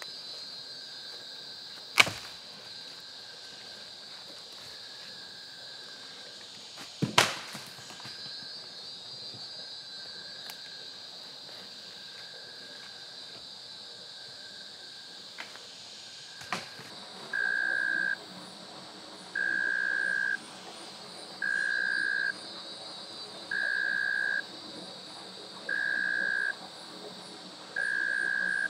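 Rainforest ambience: a steady high-pitched insect chorus, broken by two loud sharp knocks and a smaller one. Past the middle, a single-note call of one steady pitch starts, lasting under a second and repeating about every two seconds.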